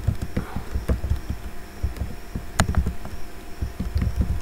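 Typing on a computer keyboard: irregular dull keystroke thumps with a few sharper clicks, the loudest about two and a half seconds in.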